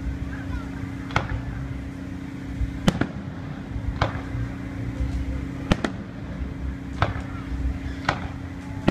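Aerial fireworks shells bursting: six sharp bangs spaced a second or so apart, over a steady low hum.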